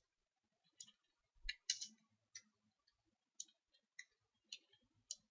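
Faint, widely spaced computer keyboard keystrokes, about eight short clicks scattered over near silence.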